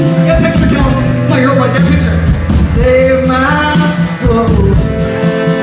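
Live neo-soul band playing a song: drums, bass, electric guitar and sustained keyboard chords, with sliding melodic lines over the top.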